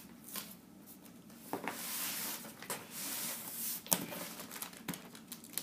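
Scissors scraping and cutting along the packing tape on a cardboard box, with stretches of rustling hiss and a few sharp clicks.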